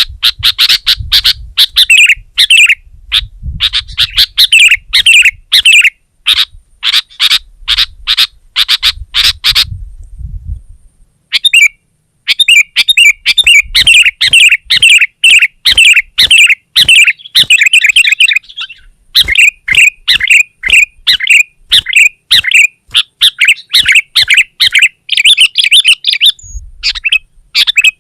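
Sooty-headed bulbul singing in loud, rapid bursts of chattering notes, pausing for about a second and a half about ten seconds in before the chatter resumes.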